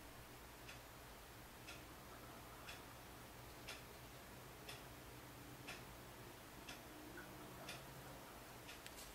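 Faint, steady clock ticking, one tick a second, over a low hum, with a couple of quicker clicks near the end.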